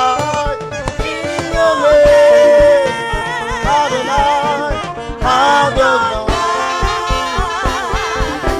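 Live gospel worship song: a singer's held notes with vibrato and sliding runs over a band with a steady drum beat.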